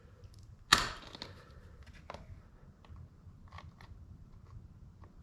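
A sharp metallic click a little under a second in, then a few faint clicks and taps: hand tools working the chain's master-link spring clip to check that it sits in its groove.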